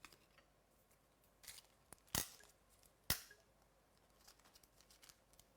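Two sharp clicks about a second apart, amid faint scattered ticks and light rustling.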